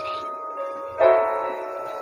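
Background music: held notes, with a new chord struck about a second in that then fades.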